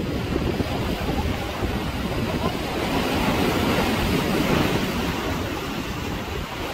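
Wind buffeting the microphone over the wash of sea surf, a steady rushing that swells a little from about three to five seconds in.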